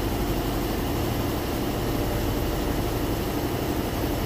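Air conditioner running with a steady hum and hiss.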